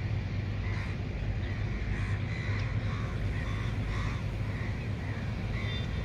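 A bird calling over and over in short arched notes, roughly two a second, over a steady low rumble.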